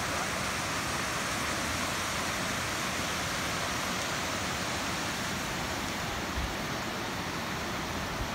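Steady rush of a small mountain stream cascading over rocks.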